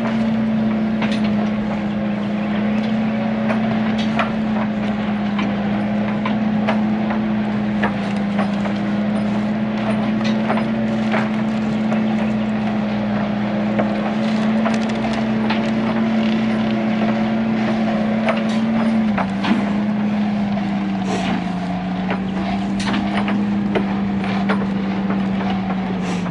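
John Deere 120 excavator's diesel engine running steadily under load, its pitch dropping a little about two-thirds of the way through, with scattered clanks and knocks from the tracks and gear.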